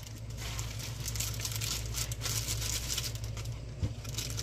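Thin plastic bag crinkling as it is squeezed and shaken to empty chopped chives into a bowl, with one light tap a little before the end.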